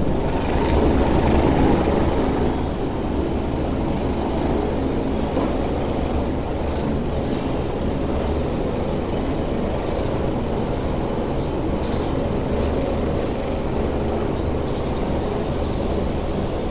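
Steady low rumble of a ferry's engine with harbour ambience, evenly loud throughout after a slight drop about two seconds in.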